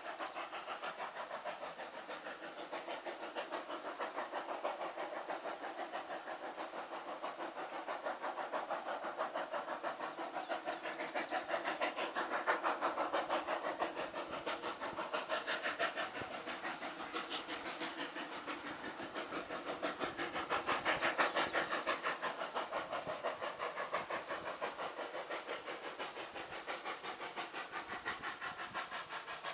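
Steam locomotive working a coal train, with a fast, even beat of exhaust chuffs and steam hiss. It grows louder about halfway through and again about two-thirds in.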